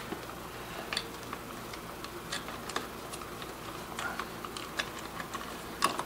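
Scattered light clicks and scrapes of stiff electrical wires and a plastic dimmer switch body being pushed by hand into a wall electrical box, with a louder click just before the end.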